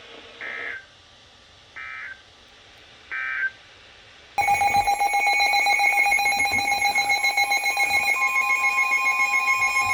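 Emergency Alert System header: three short electronic data bursts about a second and a half apart. About four and a half seconds in, the loud, steady, slightly pulsing attention tone begins; its pitch shifts near the eight-second mark. The tones mark the start of a new warning.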